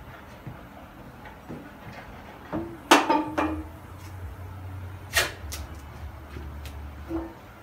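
Honda BR-V tailgate being unlatched and swung open by hand: a loud metallic clunk about three seconds in, with a lighter knock about two seconds later and another near the end, and a low hum between them.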